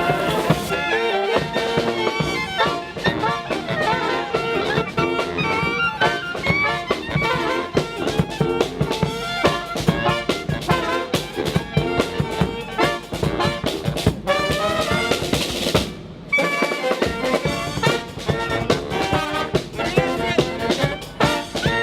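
Brass band with drums playing a lively tune, trumpets and saxophones over a steady beat, with a brief dip about three-quarters of the way through.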